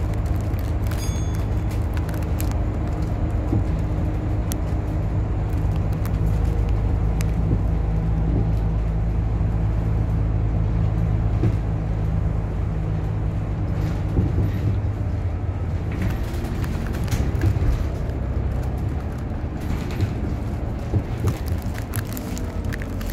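Cabin noise inside a moving city bus: the engine's steady low drone with road noise, and scattered clicks and rattles, more of them in the second half.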